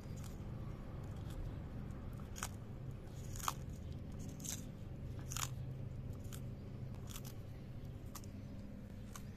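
Tortoise biting and crunching lettuce leaves: about nine crisp bites, roughly one a second, over a steady low hum.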